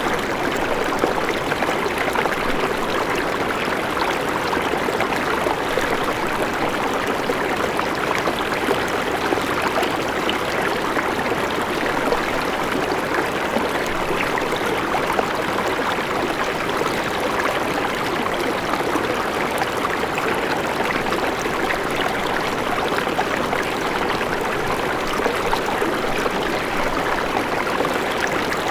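River water flowing, a steady, unbroken rushing of running water.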